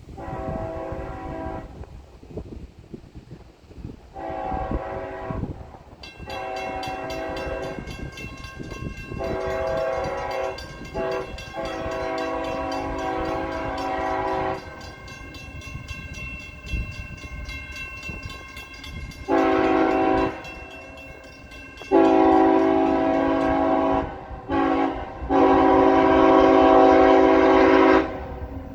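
CSX freight locomotive's multi-chime air horn sounding a long run of blasts, short and long, in a showy pattern. The blasts grow much louder as the train approaches.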